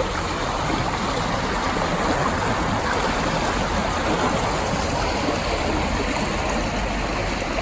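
A small stream flowing over rocks: a steady, even rush of running water.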